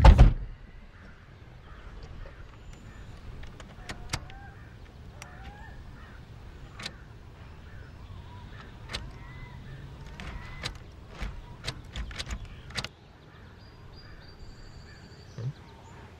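Music cuts off at the very start. Then comes quiet outdoor ambience: faint short bird chirps and scattered sharp clicks and knocks.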